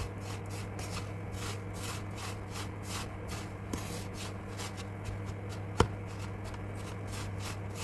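A spatula scraping and stirring in a pan through a sticky mixture of dates, semolina and raisins frying in ghee, in regular strokes about three or four a second. One sharp knock of the spatula against the pan nearly six seconds in.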